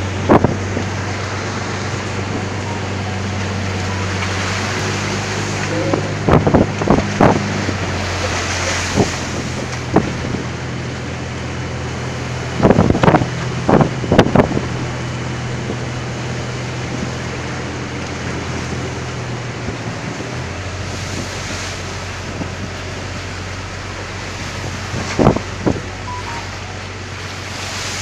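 A fishing boat's inboard engine running at a steady drone under strong wind buffeting the microphone and the rush of rough seas. Its note changes slightly twice, and sharp knocks and thumps break in three times in short clusters.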